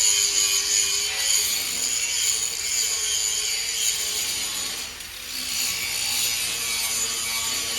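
5-inch angle grinder grinding the edge of a metal plate: a harsh, steady hiss of the disc on metal over the motor's whine. The grind eases off briefly about five seconds in, then bites again.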